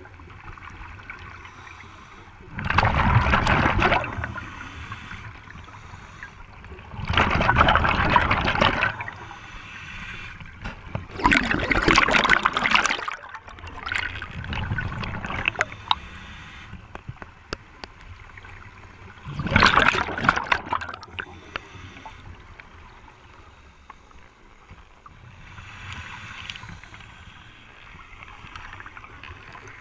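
Scuba diver breathing through a regulator underwater: exhaled bubbles rush out of the regulator in four loud bursts of about a second and a half, several seconds apart, with fainter breaths between them.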